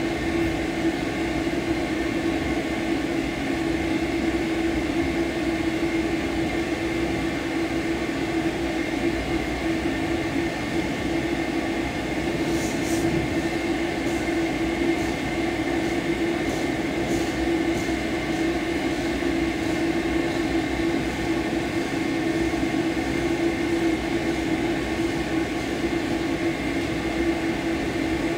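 Dog grooming blow dryer blowing steadily: a constant rush of air with a low hum and a thin high whine from its motor.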